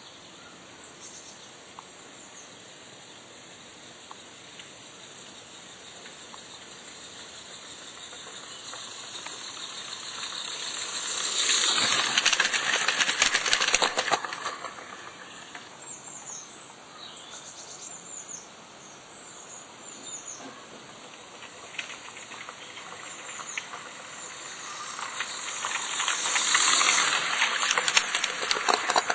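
A Roundhouse Millie live-steam garden-railway locomotive passing twice, its rapid exhaust chuffs and steam hiss growing loud as it nears, about twelve seconds in and again near the end. Birds sing in the background.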